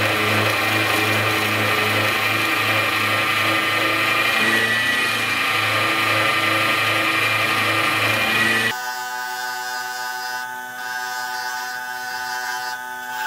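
Milling machine spindle running with an end mill cutting into a metal part, a steady machining noise over a pulsing low hum. About two-thirds of the way through it cuts off abruptly and background music takes over.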